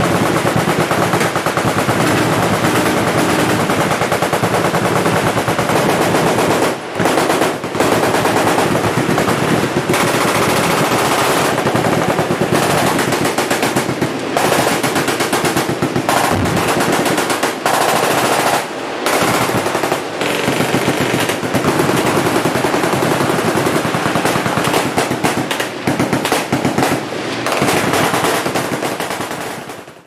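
Many machine guns firing at once from a firing line, overlapping automatic bursts in a nearly unbroken racket with only brief lulls, fading out at the very end.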